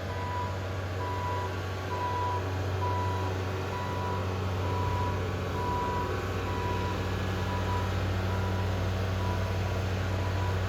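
A construction vehicle's reversing alarm beeping about twice a second over a steady diesel engine hum. The beeps grow fainter in the second half.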